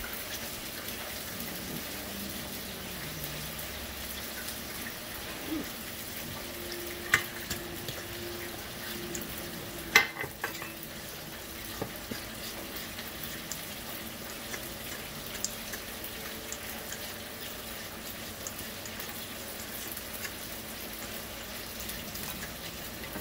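Steady hiss of chicken wings deep-frying, while a fork stirs thick hushpuppy batter in a stainless steel bowl, with two sharp clinks of the fork against the bowl.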